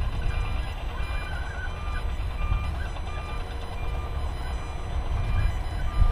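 Asphalt milling machine running as it grinds up old runway pavement, a heavy, steady diesel rumble. A backup alarm beeps repeatedly over it.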